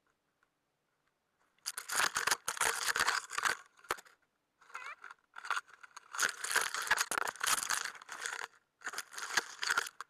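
Branches, twigs and dry leaves brushing, snapping and crunching against clothing and gear as someone pushes on foot through dense brush, in irregular bursts that start about a second and a half in.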